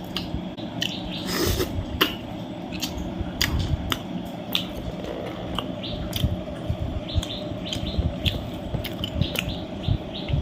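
A person chewing and eating, with irregular sharp clicks and smacks of the mouth throughout.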